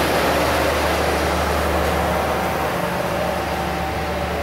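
Passenger train coaches rolling past at close range: a steady rumble and rush of wheels on rails that eases slightly toward the end.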